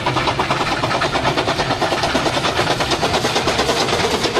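Toy classic train chugging in a rapid, even rhythm.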